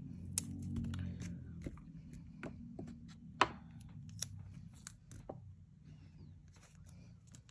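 Scattered light clicks and taps of hands handling masking tape rolls and tools on a desk, the sharpest about half a second in and about three and a half seconds in.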